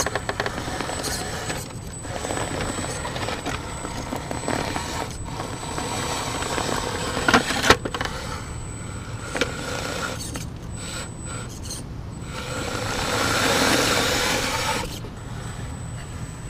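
Radio-controlled scale rock crawler driving over rocks: its electric motor and gear reduction whine steadily while the tyres scrape and the chassis clicks against stone, with a sharp knock about halfway through.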